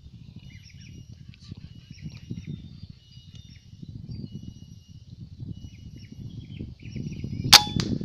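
A scoped air rifle fires once about seven and a half seconds in: a sharp crack with a short ring, then at once a second, fainter click. Before the shot, faint high whistling calls over a low rustling noise.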